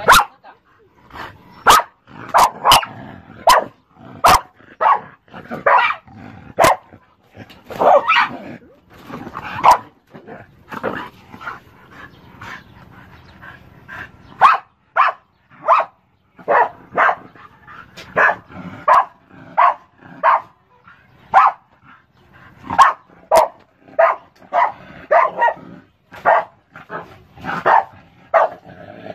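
A dog barking in short, repeated barks, about one or two a second, with a few sharp clicks in the first few seconds.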